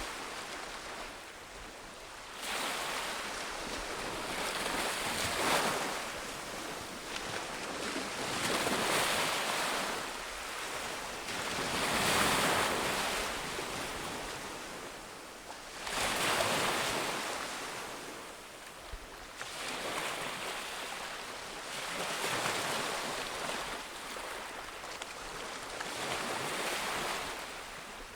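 Ocean waves breaking on a beach, each surf surge swelling and washing out every few seconds, with a steady hiss of wind between them.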